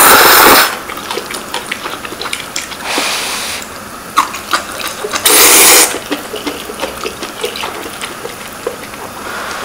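People slurping instant ramen noodles in broth: a loud slurp at the start, a softer one about three seconds in, and another loud slurp a little past five seconds, with small clicks and mouth noises in between.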